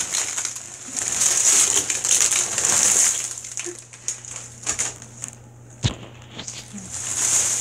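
Potato chips being poured and shifting in a dry bathtub: a dense crackling rustle for about three seconds, then scattered crunches and ticks, with one sharp snap about six seconds in.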